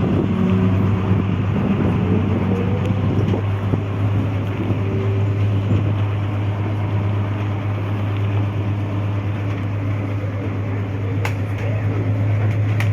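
Tour bus driving, its engine giving a steady low drone under road noise, heard from inside the bus.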